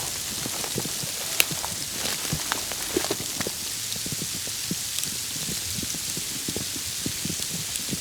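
Falling precipitation, a snow and sleet mix, hitting surfaces close to the microphone: a steady hiss with many small irregular ticks, and one sharper click about a second and a half in.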